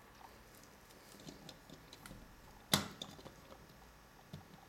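Faint clicks of plastic LEGO pieces being handled as a minifigure is fitted onto a toy go-kart, with one sharper plastic click about two and a half seconds in.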